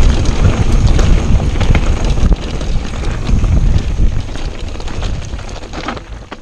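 Wind buffeting the camera's microphone over a mountain bike rattling down a rough trail of stones and roots, with many sharp clicks and knocks from the bike. The sound drops in level about two seconds in, then fades away.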